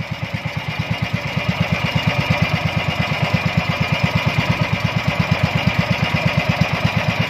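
Small fishing boat's engine running steadily under way, a rapid, even chugging that swells a little over the first couple of seconds, with a steady hiss above it.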